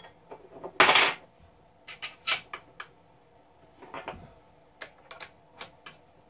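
Metal clicks and clinks as an electronic edge finder in a Tormach tool holder is fitted into a mini mill's spindle and secured, with a louder scrape about a second in and single sharp clicks after it.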